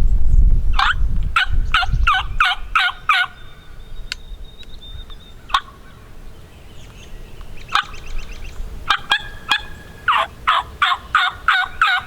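Wild turkey yelping: two quick runs of about six or seven sharp yelps, one early and one near the end, with single yelps scattered between. Low wind rumble on the microphone fades out in the first two seconds.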